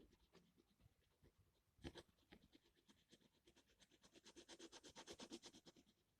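Faint scratching of a gel pen colouring in on paper. A few scattered strokes come first, then a fast run of back-and-forth strokes that grows louder and stops near the end.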